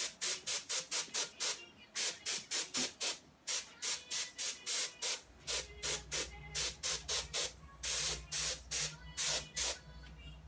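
Can of compressed air fired through its straw nozzle in quick short hissing puffs, about four a second, with a few longer blasts near the end, pushing wet alcohol ink across the canvas.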